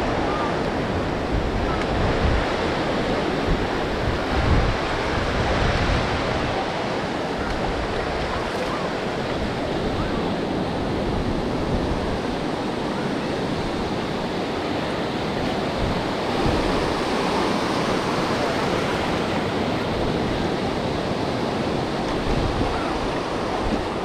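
Ocean surf washing onto the beach in a steady rush. Wind buffets the microphone, heaviest in the first few seconds.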